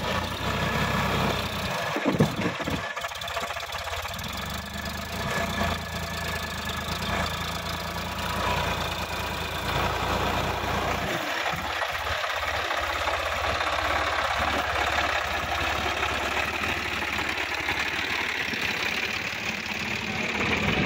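Sonalika DI-50 RX tractor's diesel engine running steadily as the tractor works through deep mud, with one sharp knock about two seconds in.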